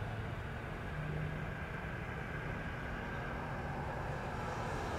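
Steady low rumble of motor-vehicle engines and traffic, with a faint engine hum, growing a little louder near the end.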